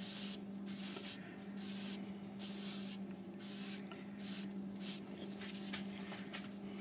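A cloth pad rubbing finish onto the walnut bottom of a turned bowl, in quick back-and-forth wiping strokes that come faster in the second half. A steady low hum runs underneath.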